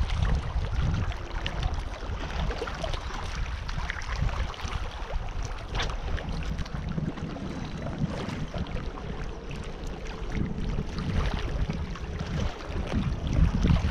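Wind buffeting the action camera's microphone as a low, uneven rumble, over small waves lapping in shallow lake water.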